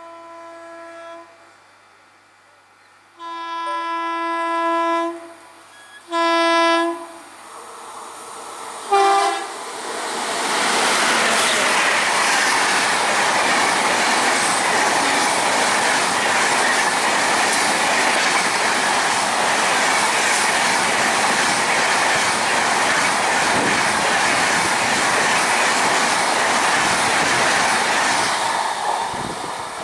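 Express train approaching at speed, sounding its multi-tone locomotive horn: a faint note, a long blast of about two seconds, a shorter blast, then a brief one. About ten seconds in, the train passes close by with a loud, steady rush and clatter of wheels on rails, fading near the end.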